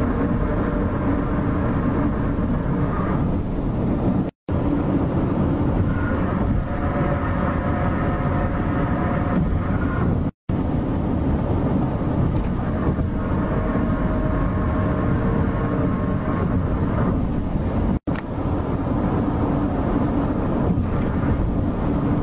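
A loud, steady low rumbling drone with faint wavering tones over it, of the kind presented as a mysterious sky sound. It is cut by three brief dropouts about 4, 10 and 18 seconds in.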